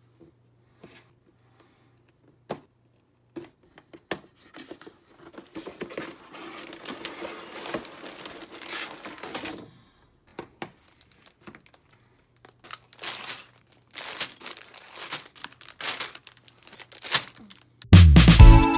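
Clear plastic LEGO parts bags crinkling and rustling as they are handled and laid out on a wooden table, with scattered taps and clicks; loud music starts near the end.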